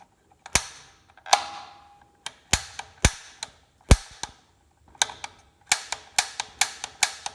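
Piezo igniter push button on a Bradford White Defender gas water heater being pressed again and again to light the pilot, each press a sharp snapping click. The clicks come a second or so apart at first, then several a second from about five seconds in.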